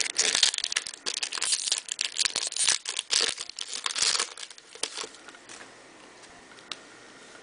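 Plastic foil wrapper of a baseball card pack crinkling and tearing as it is opened, with dense irregular crackles for about four seconds that then die away to faint rustling.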